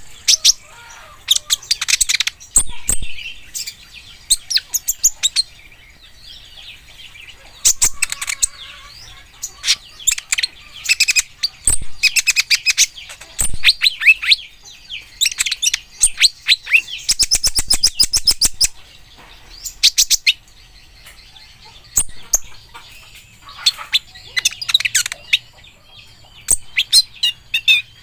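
Kolibri ninja sunbird singing: fast bursts of sharp, high chirps and trills, coming in rapid runs with short pauses between them.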